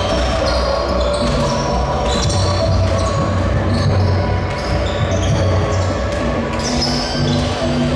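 Several basketballs bouncing on a hardwood court, under background music with short stepping notes over a steady low bass.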